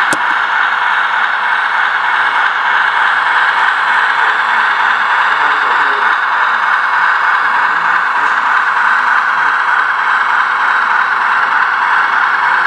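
HO-scale Bachmann S2 switcher model locomotive running along the track: a steady whirring rattle of its motor, gears and wheels on the rails, with one sharp click right at the start.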